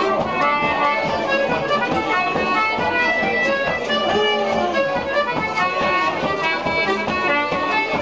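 Irish traditional dance tune played at a brisk, steady pace, led by accordion with fiddle in the mix.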